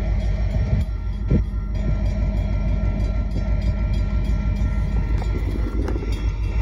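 Freight train of hopper cars rolling past: a steady low rumble that holds at an even level.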